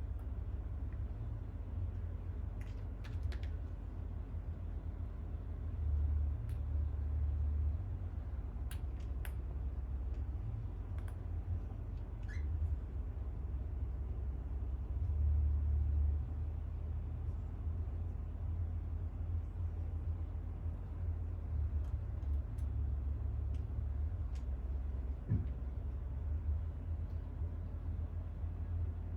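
Steady low rumble with a few light, sharp clicks and taps scattered through it, from a parrot playing with small cups and a ball.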